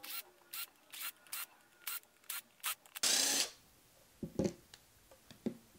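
Cordless impact driver run in a series of short bursts, about two a second, backing screws out of a plastic 12 V water pump housing, then one longer burst about three seconds in. A few light clicks of handling follow near the end.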